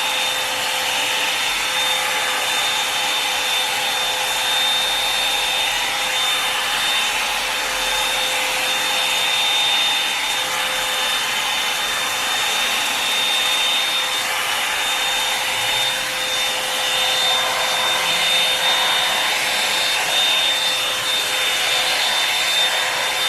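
Revlon One-Step Hair Dryer and Volumizer hot-air brush running steadily on its high setting, a continuous blowing hiss with a thin high whine from the motor. The sound shifts slightly as the brush is drawn through the hair.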